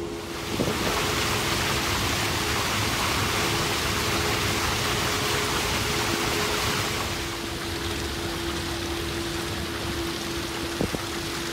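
A steady rushing noise over a constant hum. The rush grows louder about half a second in and eases back after about seven seconds.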